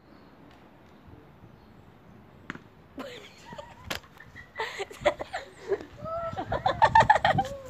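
Boys laughing, breaking into a quick run of ha-ha laughter that is loudest near the end, with one sharp click about four seconds in.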